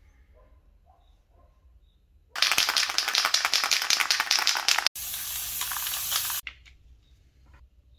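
Aerosol spray-paint can shaken hard, its mixing ball rattling fast for about two and a half seconds, then a steady hiss of paint spraying for about a second and a half that cuts off sharply.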